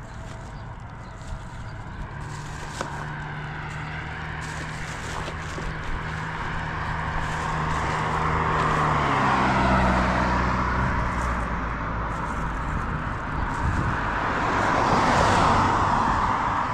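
Road traffic passing: a vehicle's engine hum grows and drops in pitch as it goes by, with tyre and wind noise swelling about 10 seconds in and again about 15 seconds in.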